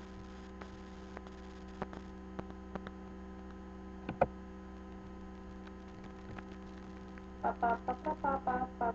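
Steady electrical mains hum with faint scattered clicks, one louder click about four seconds in. Near the end a quick run of short pitched notes begins.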